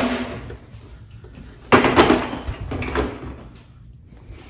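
Samsung side-by-side refrigerator's ice maker assembly being pulled out by hand: a sharp knock at the start, a longer plastic clatter and scrape about two seconds in, and a smaller knock about a second later.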